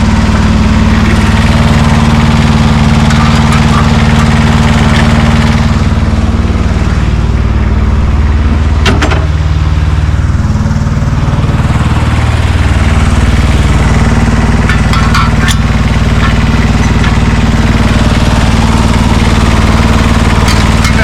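Engine idling steadily with a low, even hum; its pitch shifts slightly about ten seconds in. A single sharp click comes about nine seconds in.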